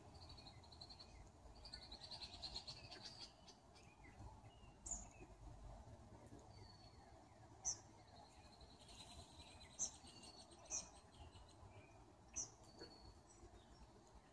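Faint birdsong: high trilling phrases, with about five short, sharp chirps at intervals of a second or two.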